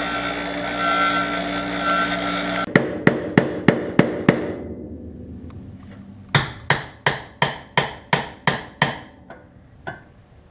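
A steady machine whine with several tones stops suddenly. Then a hammer strikes metal in two quick runs, about six blows, a short pause, then about nine more, each blow ringing briefly. It is the sound of working a stuck door hinge pin on an old car.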